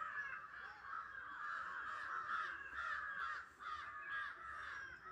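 Crows cawing continuously over one another in a dense chorus, the agitated calling of crows in panic.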